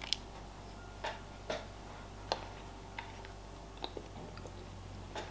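Scattered light taps and clicks, about seven in all at irregular spacing, as the halves of a giant chocolate egg shell and the plastic toy capsule inside are handled.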